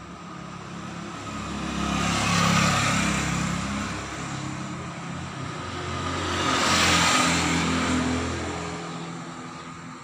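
Two motor vehicles passing by one after another, their engine and tyre noise swelling and fading, loudest about two and a half and seven seconds in.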